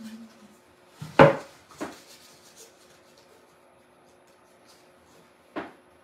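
Knocks from things being handled on a craft table: a sharp knock about a second in, a lighter one just after, and another near the end, with quiet between.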